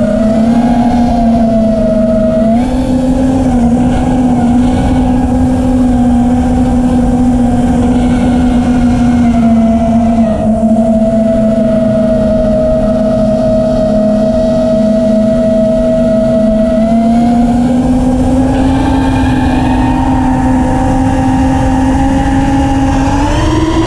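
FPV racing quadcopter's brushless motors and propellers whining steadily over a rush of air. The pitch edges up about two thirds of the way through and climbs sharply near the end as the motors spin up.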